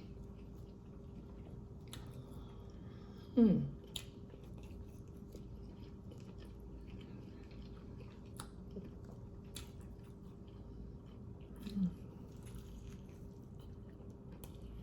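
A person chewing a spicy chicken sandwich close to the microphone, with small mouth clicks. A short voiced sound falling in pitch comes about three and a half seconds in, and a softer one near twelve seconds.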